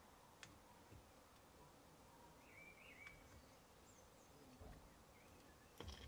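Near silence: faint room tone with a few soft clicks and a brief faint chirp about halfway through.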